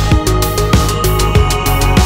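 Electronic background music with a steady drum beat.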